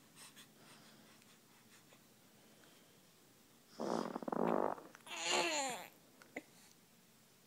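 Baby pooping into a diaper: a half-second sputtering fart about four seconds in, followed at once by a strained grunt from the baby that falls in pitch.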